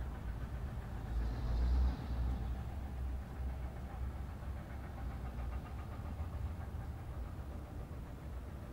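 Low, steady outdoor rumble, the hum of traffic or machinery heard from high above, swelling briefly about a second and a half in.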